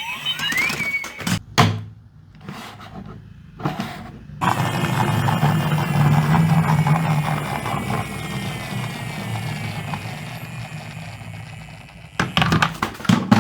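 Toy auto rickshaw being run along a plastic toy track: a few sharp clicks and knocks, then a long rolling whir that slowly falls in pitch and fades.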